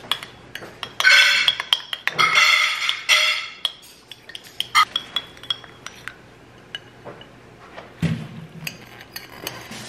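Metal spoon stirring salad dressing in a ceramic bowl: a quick run of clinks ringing against the bowl's sides for a couple of seconds, then lighter, scattered taps.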